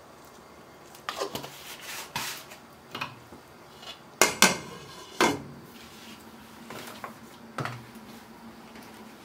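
Glass pot lid knocking and clinking against the rim of a stainless steel cooking pot as it is lifted off and set back on: a handful of sharp knocks, the loudest two close together about four seconds in with a brief metallic ring.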